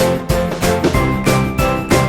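Background music with a steady beat and a melody of short high notes.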